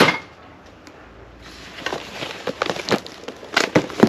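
Packaging and packed gear being handled in a cardboard box: a sharp knock at the very start, then crinkling rustle with several clicks and knocks growing busier toward the end as a packed float-tube seat is pulled out.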